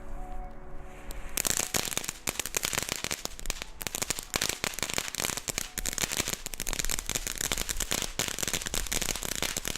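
Weco Crackling Fountain, a small ground firework fountain, going off. Dense, rapid crackling of many tiny pops starts about a second in and keeps on.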